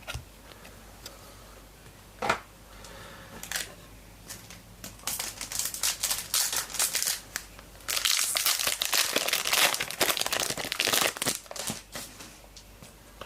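Foil trading-card pack wrapper crinkling and tearing as it is ripped open. A few light rustles and clicks at first, then steady crinkling from about five seconds in, loudest in the second half.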